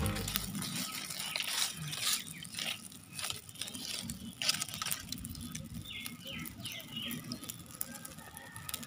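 A small fire of dry leaves crackling with irregular sharp pops and snaps as it burns, roasting dried red chillies in the flames.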